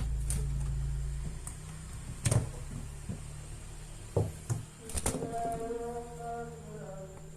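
Several sharp clicks and knocks of small hard parts being handled, over a low hum that fades after the first second. From about five seconds in, a wavering melodic voice or music comes in.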